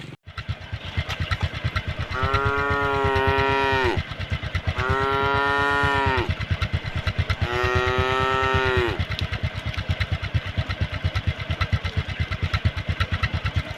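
A cow moos three times in long, drawn-out calls, each dropping in pitch at the end, over the even putter of a motorcycle engine running.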